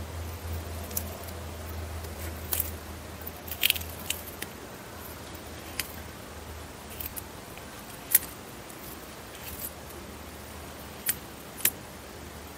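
Eastern Hermann's tortoise eating leafy greens: its beak snips and tears the leaves with sharp, crisp crunches at irregular intervals, about ten in all.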